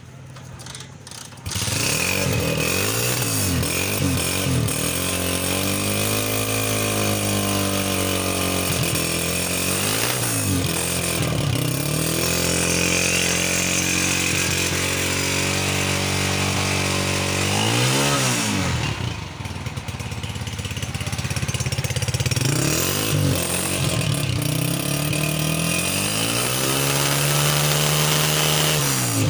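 Honda CG125's single-cylinder four-stroke engine running and being revved up and down again and again; it cuts in abruptly about a second and a half in and drops briefly toward idle about eighteen seconds in before revving again.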